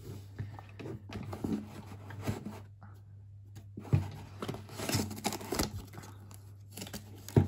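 Hands handling a knit-upper football boot and its paper tag: scattered rustling and scraping, with a sharp knock about four seconds in and another near the end, over a steady low hum.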